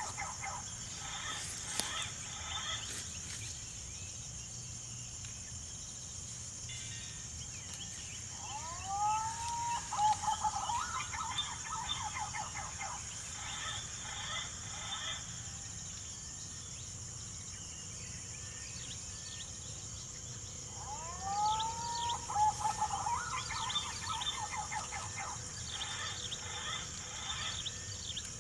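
Green pigeon (punai) calls played from a bird caller as a lure: a phrase of curving whistled notes that repeats almost identically about twelve seconds apart, over a steady high insect drone.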